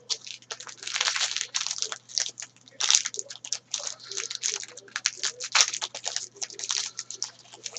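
Trading card pack wrapper being torn open and handled, with dense, irregular crinkling and crackling throughout.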